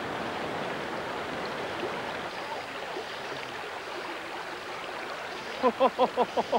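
Fast river water rushing over rocks below a weir, a steady wash of white water. A little over five seconds in, a quick run of short pitched pulses starts, several a second.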